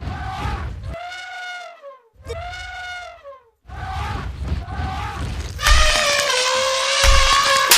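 Elephant trumpeting: a string of short calls, each rising and falling in pitch, then a longer, louder trumpet blast about six seconds in.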